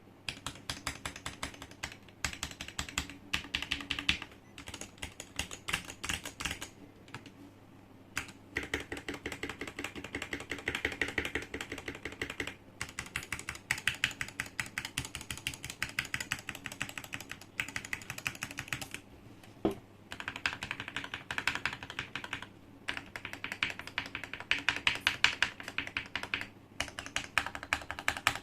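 Typing on a Tecware Phantom Elite 87 TKL mechanical keyboard modded with lubed Gateron black linear switches, tuned stabilisers, tape and foam mods and concrete keycaps. Fast runs of key presses with a few short pauses, and a heavier stroke now and then.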